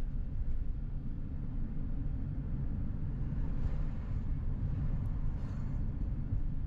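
Steady low rumble of road and engine noise heard inside the cabin of a vehicle cruising along a highway.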